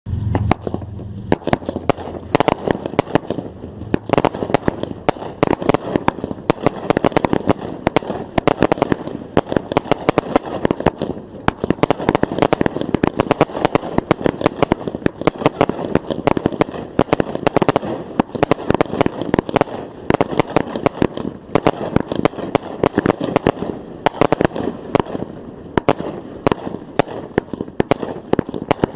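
Fireworks going off: a dense, unbroken run of sharp bangs and crackles, with a deep boom right at the start.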